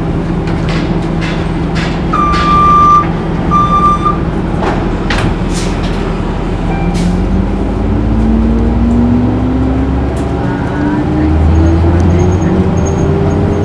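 Orion VII Hybrid city bus heard from on board: two electronic beeps about two seconds in, with scattered knocks and rattles, then the hybrid drive's whine rising steadily in pitch from about halfway through as the bus accelerates, over the low running of its diesel engine, which grows louder near the end.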